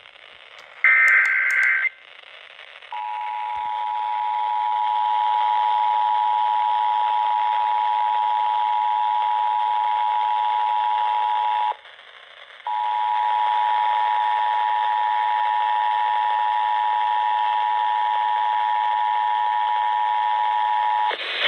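Emergency Alert System broadcast over FM radio: the last one-second burst of the SAME header data screech, then the EAS two-tone attention signal. The steady two-note alarm tone sounds for about nine seconds, breaks off for about a second, and resumes for about eight more seconds, all over radio hiss.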